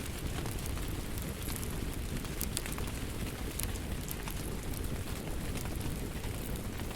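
Fireplace crackling, with frequent sharp pops and snaps, over a steady low rush of rainfall.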